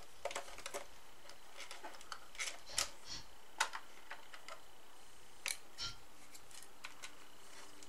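Scattered small clicks and plastic taps as a screwdriver undoes the screw of a toy RC dump truck's plastic battery compartment cover and the cover is lifted off, the loudest clicks about three and three and a half seconds in.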